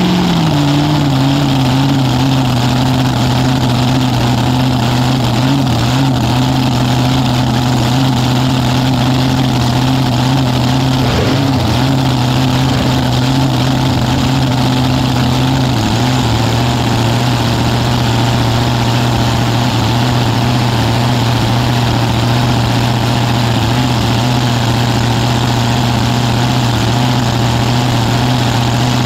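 Supercharged nitro V8 of a front-engine dragster idling steadily through open zoomie headers, with a couple of brief dips in revs about midway.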